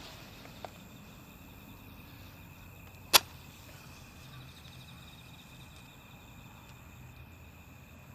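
Campfire burning, with one sharp loud pop of burning wood about three seconds in and a faint tick shortly after the start. Insects such as crickets chirr steadily in the background.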